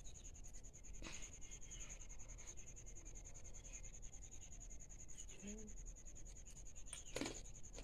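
Quiet room with a faint steady high whine, and short crunches of a papad wafer being bitten, one about a second in and a louder one near the end.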